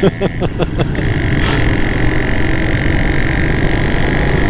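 Motorcycle riding along a road: steady engine drone and wind rush on a helmet-mounted microphone, with a quick run of knocks in the first second.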